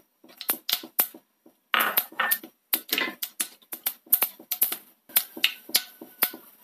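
Mustard seeds popping in hot coconut oil, with fenugreek seeds just added: irregular sharp crackles, several a second.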